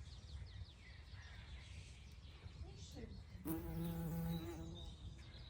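A flying insect buzzing close past the microphone for about a second, starting about three and a half seconds in.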